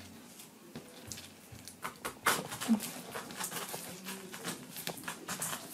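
A knife cutting into a whole pineapple: irregular crunchy clicks and snaps as the blade works through the tough rind, with a sharper cluster a little after two seconds in.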